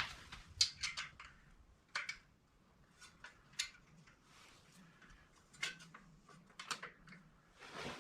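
Hand tools clinking and clicking on the bolts of a motorized bicycle as they are snugged tight, a few short metallic clicks every second or so.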